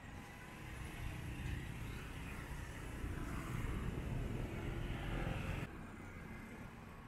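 Motor vehicle running close by in street traffic, its engine and road noise building over several seconds, then dropping off abruptly about two-thirds of the way through.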